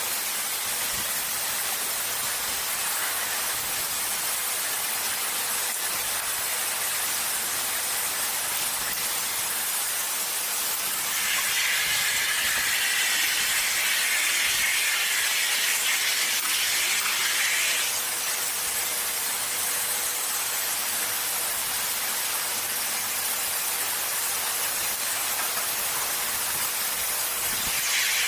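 Hot air welding machine running with a steady hiss of hot air and a faint steady hum under it. About eleven seconds in, a louder, higher hiss joins for some seven seconds, then drops back.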